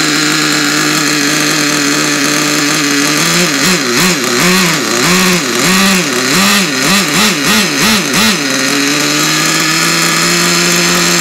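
Redcat Tornado S30 RC truck's nitro engine idling, then revved in a quick string of short throttle blips, each rising and falling in pitch. It then settles back to a steady idle that creeps slightly higher near the end. The engine is running with an air leak, which the owner thinks comes from loose exhaust bolts.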